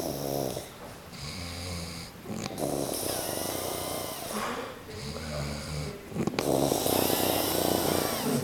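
A man snoring heavily in drunken sleep: a run of long, low buzzing snores, each a second or two long, coming one after another with short breaths between.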